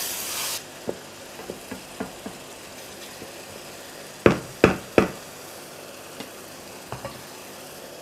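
Wooden spoon stirring a simmering tomato, onion and pepper sauce in a frying pan, with a brief sizzle at the start and light clicks against the pan. Three sharp knocks come close together about four seconds in.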